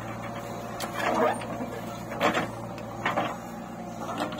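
JCB 3DX backhoe loader's diesel engine running with a steady hum while it works. Over it come a few short noisy rushes as loose soil is tipped from the front bucket into a steel tractor trolley.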